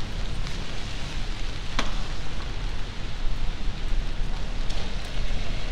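Steady rain falling on a wet city street, an even hiss over a low rumble, with a few sharp ticks; the loudest tick comes about two seconds in.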